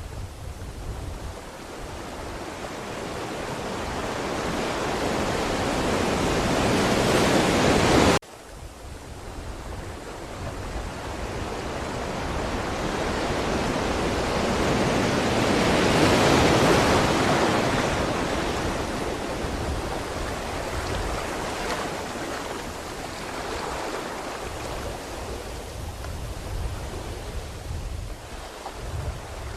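Ocean waves surging in and washing back. One swell builds and cuts off suddenly about eight seconds in, then a second, longer swell builds to its loudest about halfway through and slowly fades.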